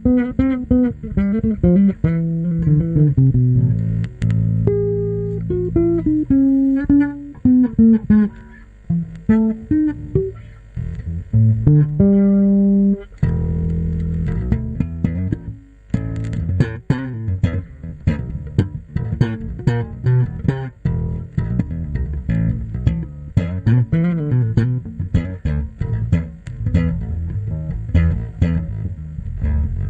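Samick Artist Series bass guitar played solo: a melodic line of held and sliding notes, which turns at about thirteen seconds into quicker notes with sharp attacks.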